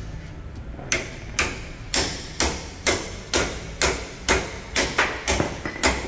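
A run of sharp knocks, about two a second, evenly spaced and starting about a second in.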